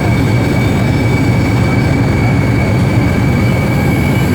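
Steady, loud machine drone with a constant high-pitched whine running through it, unchanging throughout.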